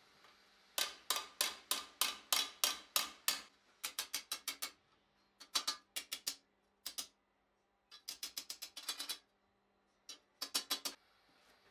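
Ball-peen hammer striking red-hot steel on a bar-shaped stake anvil in quick runs of light blows, about four to five a second, with short pauses between the runs.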